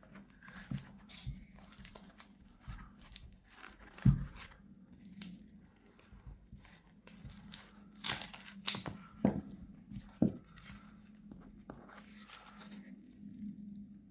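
A small knife cutting and scraping through a running shoe's fabric insole board and foam midsole, with the foam and fabric ripping apart under the hands. It is a string of irregular rasping cuts and tears, loudest about four seconds in and again around eight to ten seconds in.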